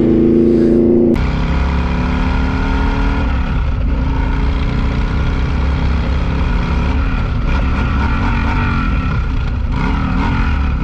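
A cruiser motorcycle's engine running steadily while riding in traffic, with the hum of the ride underneath. Its pitch wavers slightly as the throttle changes. About a second in it takes over abruptly from a sport bike's engine running.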